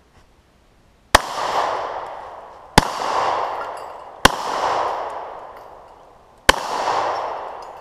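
Four shots from a Springfield Armory XD(M) semi-automatic pistol, spaced about one and a half to two seconds apart, each followed by a long echo that dies away over a second or more.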